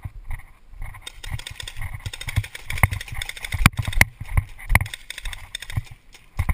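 Running footsteps on grass and sand, an irregular run of thumps, with a few sharper knocks about three to four seconds in.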